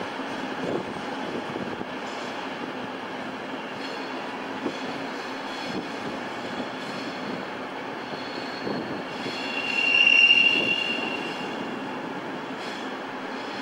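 Train running on the station tracks with steady wheel-and-rail noise; about ten seconds in, a high wheel squeal swells and fades, typical of flanges grinding on a curve.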